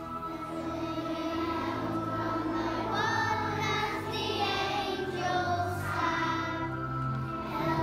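A choir of young children singing a song together.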